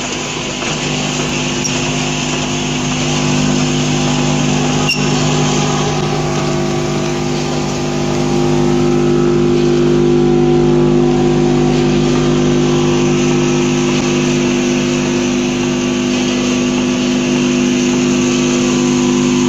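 Balloon packing line, a vertical form-fill-seal machine with a multihead weigher and vibratory feeder, running: a steady mechanical hum with several steady tones over a noisy whir, growing a little louder after the first few seconds, with a single click about five seconds in.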